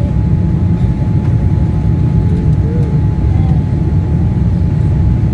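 Jet airliner cabin noise in flight: a steady low rumble with a thin steady whine above it.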